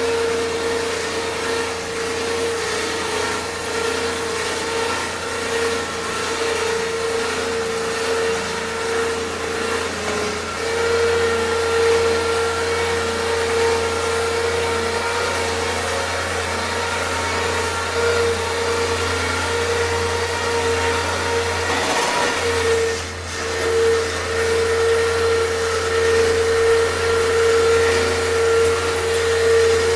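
A motor running steadily with a constant whine over a low hum, dipping briefly about three quarters of the way through.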